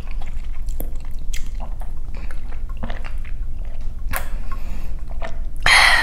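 Close-miked mouth sounds of drinking from a water bottle through its spout: small wet clicks and swallows, with a louder breathy burst near the end as the bottle comes away.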